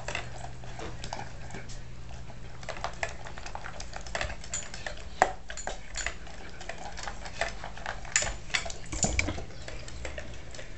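Bernese Mountain Dog eating kibble with steak and gravy from a stainless steel bowl: sloppy chewing and slurping with irregular clinks and knocks of food and muzzle against the metal bowl, one sharper knock about five seconds in.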